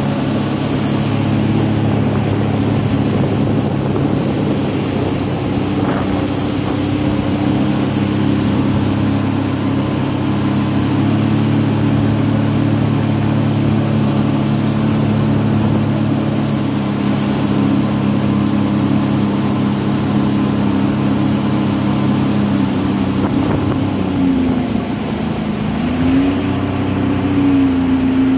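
Sea-Doo personal watercraft engine running steadily at cruising speed, with a rush of water from the hull and jet spray. Near the end the engine note drops as the throttle is eased, then climbs back up.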